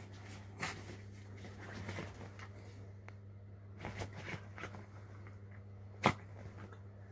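A dog playing and scuffling indoors: a few scattered knocks and scrapes, the loudest about six seconds in, over a steady low hum.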